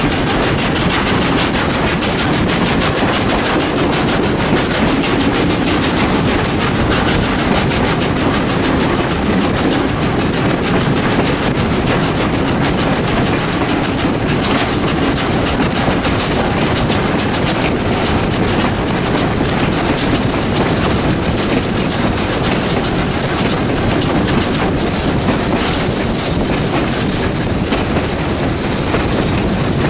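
South Australian Railways 620 class 4-6-2 steam locomotive 621 working hard up a 1 in 45 grade, its exhaust beating rapidly and steadily from the stack, with wind rushing on the microphone.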